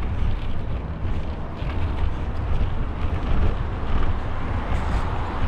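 Wind buffeting the microphone while cycling: a steady, loud, low rumble with a fluttering noise over it.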